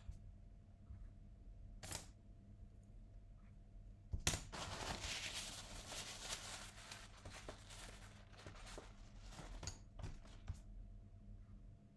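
Paper towel crinkling and rustling as it is handled, beginning with a sudden crackle about four seconds in and thinning into scattered crackles that stop about ten seconds in. A single light tap comes about two seconds in.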